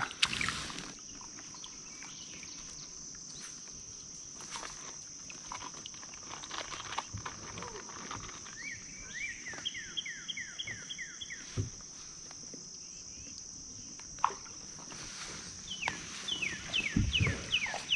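Steady, high-pitched insect buzzing, with a bird repeating a run of quick downward-sliding notes about halfway through and again near the end.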